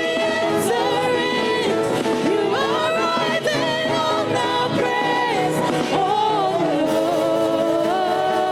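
Gospel singing: a solo voice holding long, sliding notes over live band accompaniment.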